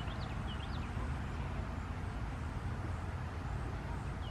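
Outdoor ambience: a steady low rumble with a few short bird chirps in the first second.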